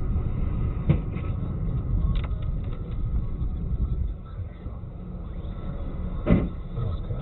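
Steady low rumble of a moving road vehicle, with a couple of sharp knocks and a heavier thud about six seconds in.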